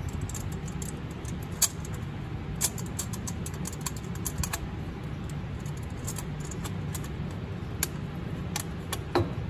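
Light metal clicks and taps from turbocharger plumbing parts being handled, about six scattered ones, over a steady low hum.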